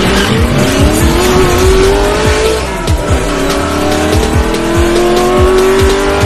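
Electronic outro music with a steady beat, overlaid by a racing-car sound effect: an engine revving up in two long rising sweeps, with tyre squeal.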